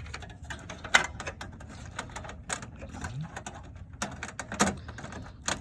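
Irregular clicks and rattles of a cable connector being handled and pushed into its socket inside a desktop computer case, with sharper clicks about a second in and again near the end.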